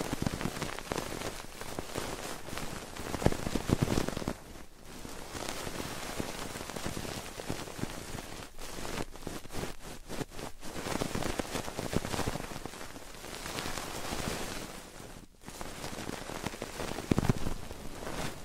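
Close-miked ASMR ear sounds: fingers flicking and rubbing on the microphone's ears, making a dense patter of crackling and rustling. It breaks off briefly about four and a half and fifteen seconds in.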